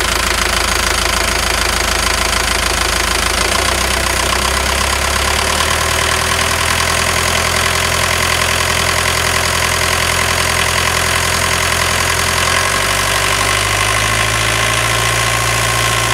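Sailboat's inboard diesel engine running just after a start, turning the belt-driven high-output alternator and engine-driven watermaker pump. The low engine note steps to a new pitch a few times as the speed changes.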